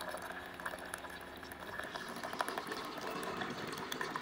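Famiworths single-serve coffee maker brewing a K-cup: hot water bubbling and gurgling through the machine with a steady crackle of small pops, late in the brew cycle.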